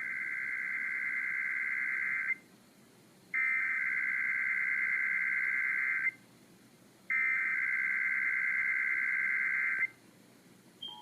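Emergency Alert System SAME header: three bursts of buzzy digital data tones, each about two and a half seconds long with about a second's pause between, sent over radio. It marks the start of a Required Monthly Test and carries the encoded event, area and time.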